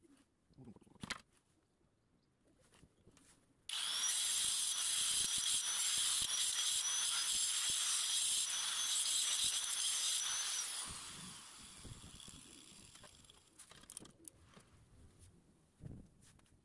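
Electric angle grinder with a cutting disc, switched on about four seconds in, runs with a steady high whine while cutting into ceramic for about seven seconds. It is then switched off and spins down. A few light knocks come from the ceramic pieces being handled before and after.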